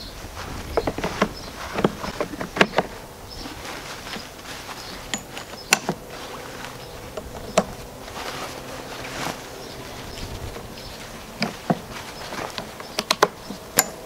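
Fabric collection bag being handled and clipped back onto the plastic body and frame of an electric push leaf vacuum: scattered sharp clicks and knocks with rustling, over a faint steady hum.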